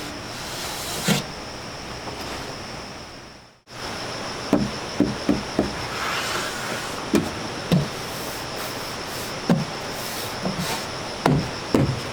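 Background music fading out, then a series of short knocks and taps at irregular intervals over a steady hiss.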